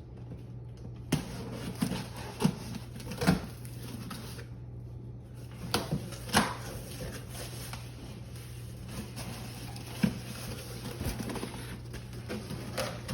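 Cardboard box and packing of a PC case being handled and opened: scattered knocks, thumps and rustles, over a steady low hum.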